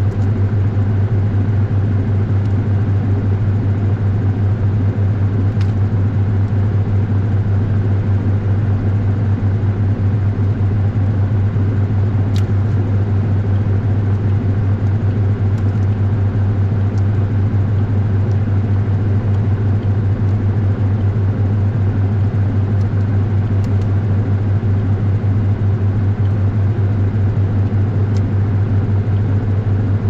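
Washing machine running, heard from a camera inside the drum: a steady deep hum with a few faint ticks.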